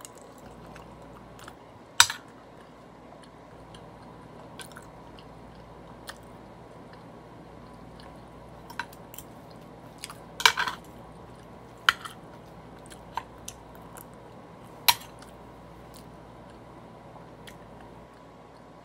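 A person eating beef soup: quiet chewing with scattered sharp clicks and clinks, the loudest about two seconds in and a short cluster around ten seconds.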